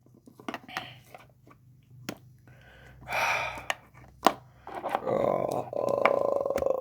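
Plastic action figures being handled and knocked together: scattered sharp clicks and taps, with a longer rasping stretch over the last two seconds.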